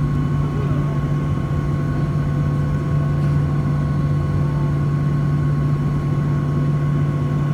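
Steady drone of a Boeing 737-800's CFM56-7B turbofan engines heard from inside the passenger cabin: a strong low hum with a thin, steady whine above it.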